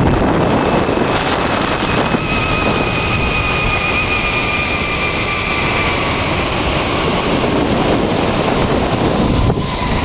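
Loud rushing wind on the microphone during a zipline ride, with a thin whine from the trolley's pulleys running along the steel cable that slowly falls in pitch from about one and a half seconds in to about six seconds.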